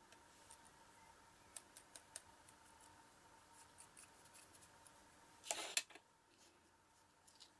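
Faint small clicks and taps of a metal spoon scooping and sprinkling clear embossing powder onto paper, with one louder brief scrape about five and a half seconds in as the spoon is set down.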